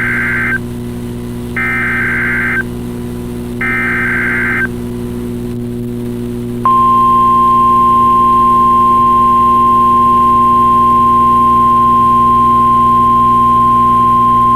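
NOAA Weather Radio's Emergency Alert System SAME header: the end of one digital data burst and then two more, each about a second long and a second apart, with the shrill warbling sound of the data tones. After a short gap, the steady 1050 Hz warning alarm tone starts about six and a half seconds in and holds. A low steady hum runs underneath.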